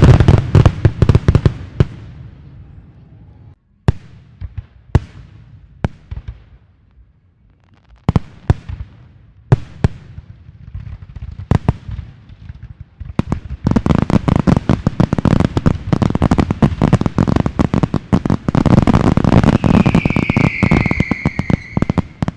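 Fireworks going off: a quick run of bangs at first, then scattered single bangs with gaps between them, then a long dense crackling barrage from a little past halfway. Near the end a whistle falls in pitch over the barrage.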